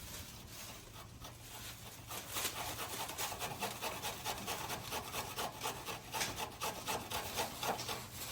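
Rhythmic rubbing or scraping strokes, about three to four a second, picking up about two seconds in.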